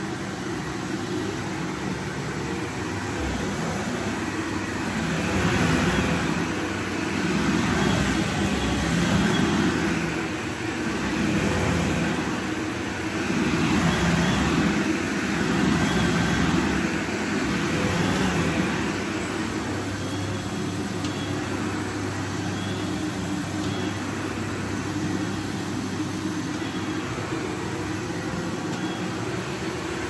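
Upright vacuum cleaner running on carpet, its motor and brush roll making a steady noise. Through the middle the sound swells and eases about every two seconds as the cleaner is pushed back and forth.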